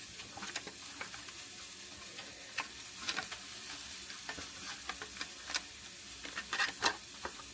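Food frying in a pan: a steady sizzle with scattered pops and crackles.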